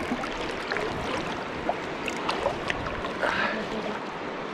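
River water running steadily, with a few faint short ticks scattered through it.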